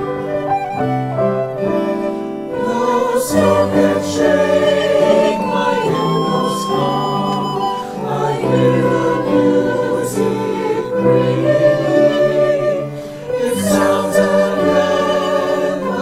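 Music: singing voices over instrumental accompaniment, a church song.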